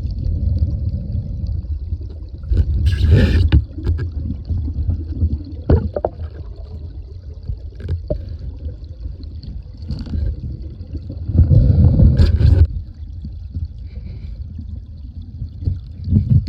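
Creek water sloshing and splashing over a steady low rumble, swelling louder twice, with a few sharp knocks.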